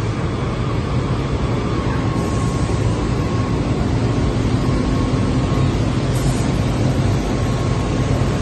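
SCM Record 132 CNC machining centre running with its router spindle working a wooden workpiece: a steady, loud machine hum with a faint higher tone through the middle.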